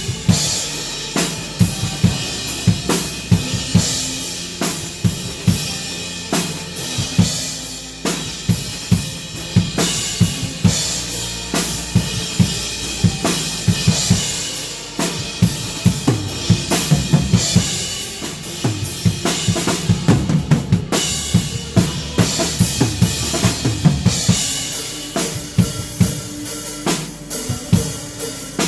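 Drum kit playing a steady worship-song groove of kick, snare and cymbals, with hits at an even rhythm, over band music with sustained bass notes.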